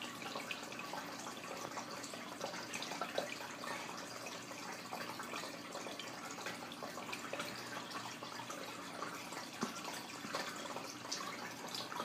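Aquarium filter water trickling and splashing steadily, with small scattered drips.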